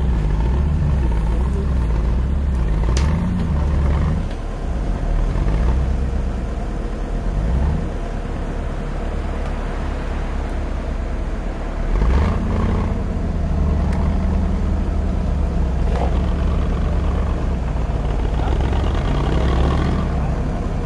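Toyota 4x4 trial truck's engine labouring in low gear as the truck crawls up a steep dirt slope. The revs drop back around four seconds in and rise again about twelve seconds in. A few sharp knocks sound over the engine.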